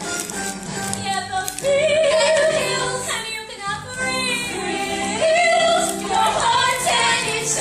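A woman singing a musical-theatre song over instrumental accompaniment, with two long held notes that waver in pitch about a second and a half and five seconds in.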